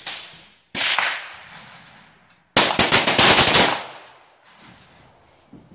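Pistol shots on a firing line: one shot at the start and another just under a second in, then a rapid burst of many overlapping shots for about a second, around three seconds in.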